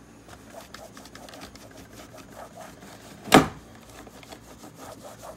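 Cloth rubbed quickly back and forth over the case of an Amiga external floppy drive, a rapid scrubbing rasp, with one loud thump about three seconds in.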